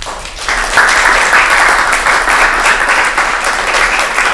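Audience applauding, building up about half a second in and then holding steady.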